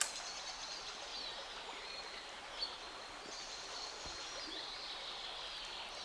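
Small taiga river rushing steadily, with small birds chirping and whistling over it. A sharp click at the very start and a short knock about two and a half seconds in.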